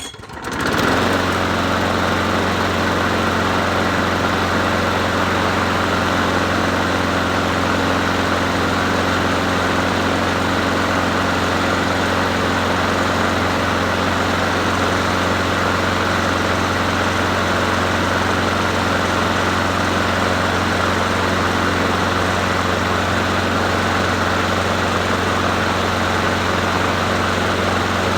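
Bolens 22-inch push mower's small single-cylinder engine catching after a rope pull and coming up to speed within the first second, then running at a steady speed.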